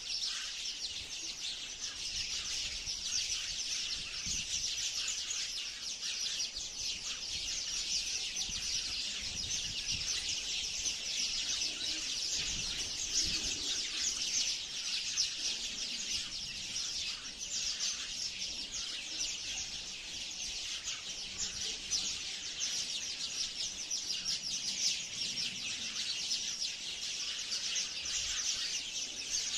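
A flock of sparrows chirping without a break, many rapid high chirps overlapping into a continuous chatter.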